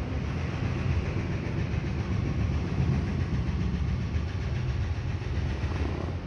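Steady low rumble of a running engine, unchanging.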